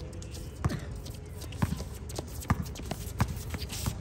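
Basketball bouncing on a hard court: four sharp thuds about a second apart, with voices in the background.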